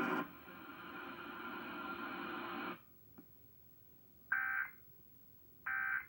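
A steady droning tone with many overtones cuts off abruptly about three seconds in. Then come two short, shrill digital data bursts a little over a second apart: the Emergency Alert System end-of-message code that closes the alert.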